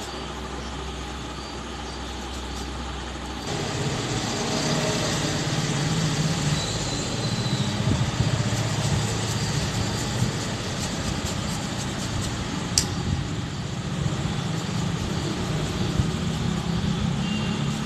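Steady low mechanical rumble, engine-like, that grows louder about three and a half seconds in, with a single sharp click near the end.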